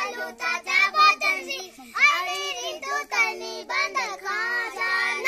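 Young children singing a Saja festival folk song together without instruments, in a half-sung, half-chanted way.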